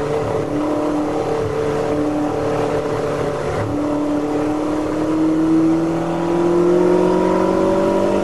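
Classic Ferrari V8 engine heard from inside the car while racing in third gear: it holds steady revs through a corner, lifts briefly about three and a half seconds in, then accelerates hard with a steadily rising pitch.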